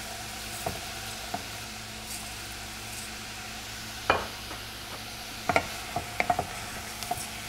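Jasmine rice, chopped onion and celery sizzling steadily in butter and oil in a stainless steel saucepan as the rice is toasted. From about four seconds in, a wooden spoon knocks and scrapes against the pan several times as the rice is stirred.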